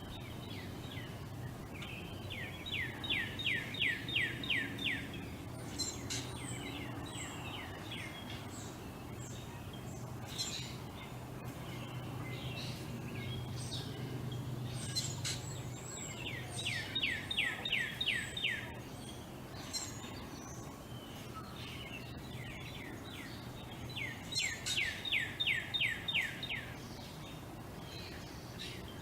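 Backyard songbirds: one bird sings a run of about ten quick down-slurred whistled notes three times, with other birds' short high chirps scattered between. A steady low hum runs underneath.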